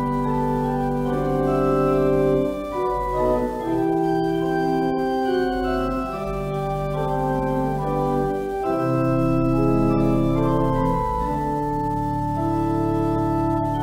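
Organ playing a slow prelude: sustained chords that change every second or two over a held bass note.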